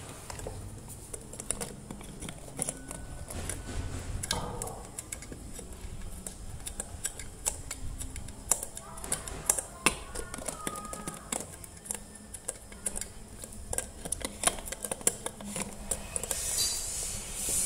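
Irregular small clicks and taps of metal and plastic parts being handled and pried as the base of an electric kettle is taken apart by hand and with needle-nose pliers.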